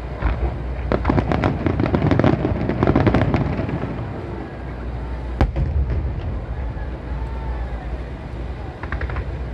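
Fireworks display: a rapid string of bangs and crackles for a few seconds, then a single sharp bang about five seconds in.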